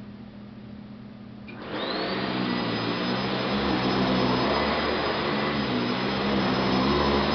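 Eureka The Boss upright vacuum cleaner, with its 5-amp motor, switched on about a second and a half in: the motor whine rises quickly to speed, then runs steadily and loudly.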